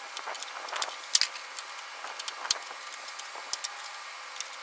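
Irregular light clicks and ticks of a pry tool working the windshield washer line's plastic clips loose from the underside of a Ford F-250 Super Duty hood, the sharpest about a second in.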